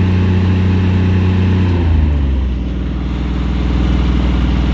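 Lincoln Electric Ranger 305D welder's diesel engine running at a steady speed, then dropping to a lower idle about two seconds in.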